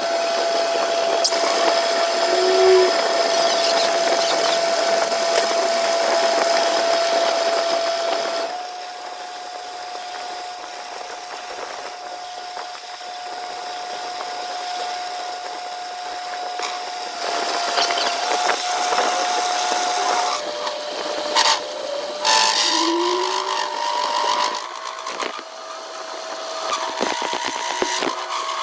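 A power tool or workshop machine running with a steady whine and a hiss of cutting noise over it; the pitch shifts slightly a few times as the load changes, and a few sharp knocks come near the end.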